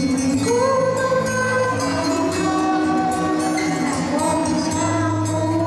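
A young woman singing a slow melody into a microphone over an amplified pop backing track with a steady beat.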